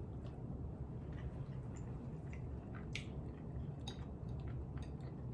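A person chewing food close to the microphone, with small wet mouth clicks every second or so over a steady low hum.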